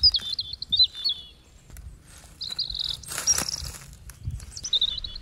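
Small birds chirping and twittering in quick high phrases, with a couple of dull thumps and a short rustle in between.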